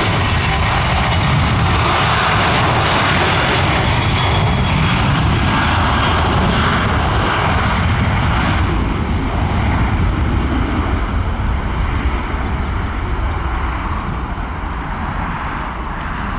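Boeing 737-800's twin CFM56-7B turbofans at takeoff power during the takeoff roll: a loud, steady jet rush with a high fan whine, growing fainter over the last several seconds as the airliner accelerates away down the runway.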